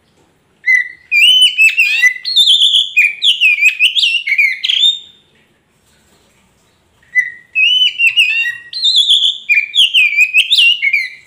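Oriental magpie-robin (kacer poci) singing: two long phrases of loud, varied whistled notes that swoop rapidly up and down, each lasting about four seconds, with a short pause between them.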